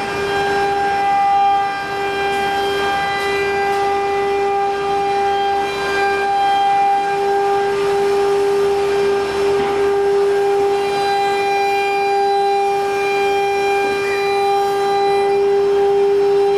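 CNC router running while it automatically unloads cut MDF panels from its table: a steady machine whine with a stack of overtones.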